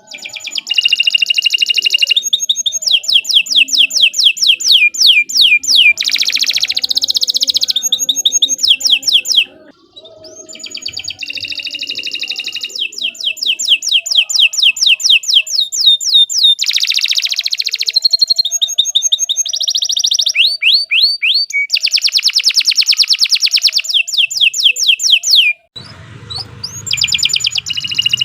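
Domestic canary singing loudly in long, continuous phrases of rapid trills and rolls, each phrase a fast run of repeated notes, with brief pauses about ten seconds in and near the end.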